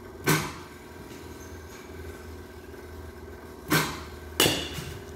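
Baseball bat hitting pitched balls in a batting cage: three sharp cracks, one about a third of a second in and two close together near the end, over a steady low hum.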